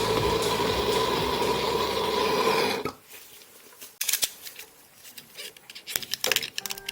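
A motor-driven tool runs steadily for about three seconds and stops abruptly. Scattered clicks and knocks of hard parts being handled follow.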